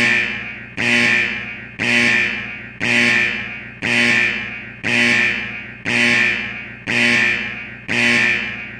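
Emergency alert attention tone: a pitched alarm tone sounded about once a second, each pulse starting sharply and fading away, repeated steadily.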